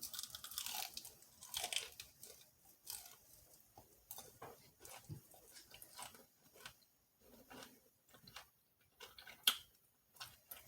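Chewing on crispy fried food close to the microphone: irregular crisp crunches and wet chewing, with one louder crunch near the end.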